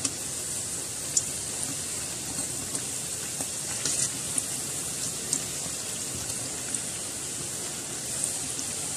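Yeast-dough puffs deep-frying in oil in a kadai on low heat: a steady sizzle with scattered small crackles and pops.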